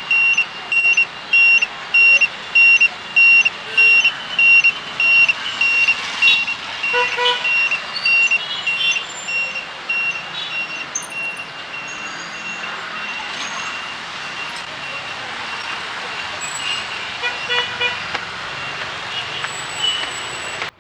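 A high electronic beeper pulses about twice a second for the first few seconds, and a faint steady tone lingers after the pulses stop. Vehicle horns honk twice, about seven seconds in and again near the end, over a steady hiss of street traffic.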